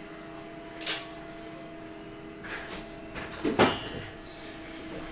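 Handling noises: a sharp click about a second in, faint rustling, then a louder knock with a short rattle about three and a half seconds in, over a steady low hum.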